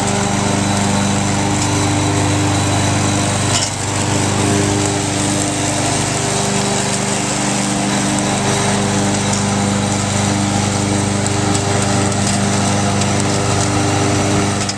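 Ariens riding lawn mower's V-twin Briggs & Stratton engine running steadily as the mower drives, with a brief dip in level about four seconds in.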